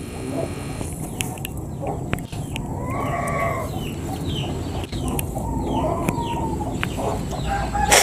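Chickens clucking and calling, with two longer calls about three and six seconds in.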